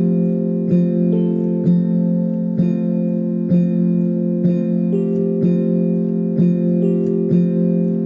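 Background music on an electric piano: a held chord with notes struck in a steady pulse about once a second.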